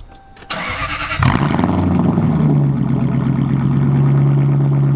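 Car engine with a straight-piped true dual exhaust starting up: the starter cranks briefly about half a second in, the engine catches just over a second in and settles into a loud, steady idle.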